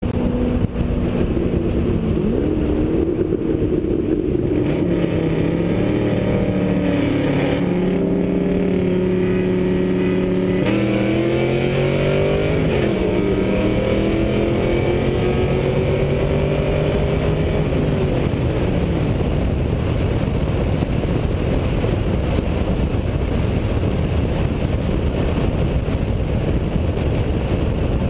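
Pontiac GTO's 6.0 L LS2 V8 at full throttle in a roll race from 40 mph, with a C6 Corvette Grand Sport's V8 alongside. The engine note climbs in pitch and drops back at each upshift for the first eighteen seconds or so. After that, loud steady wind and road noise at high speed cover the engines.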